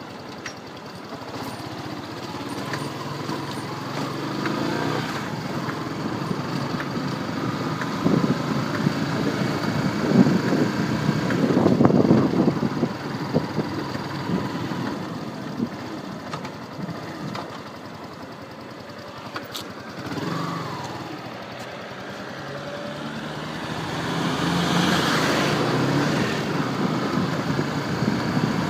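Yamaha R15 V2 single-cylinder motorcycle running, swelling louder twice, with the 'tak tak tick tick' clicking from its chain and sprocket that the owner is trying to diagnose.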